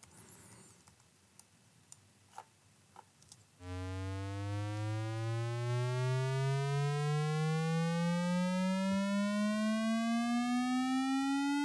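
Synthesized buzzy tone gliding slowly and steadily upward in pitch, a video-game-style acceleration effect, starting about three and a half seconds in and cutting off abruptly near the end. A few faint mouse clicks come before it.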